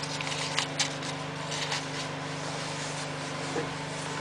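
A few short scratching clicks from someone setting light to cardboard kindling in a wood stove's firebox, over a steady low hum.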